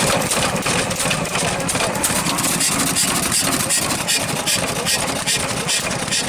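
7 horsepower Economy single-cylinder hit-and-miss engine running, with a fast, even clatter of strokes.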